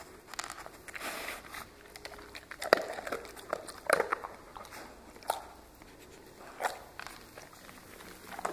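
A dog's mouth sounds as it chews and licks: a few short, sharp smacks spaced a second or so apart.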